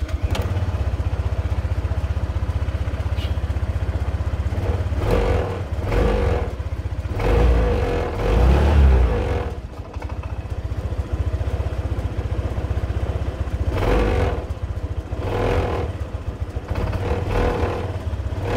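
Honda PCX 125 scooter's single-cylinder four-stroke engine running after an oil change, idling steadily with about six short throttle blips that rev it up and let it fall back.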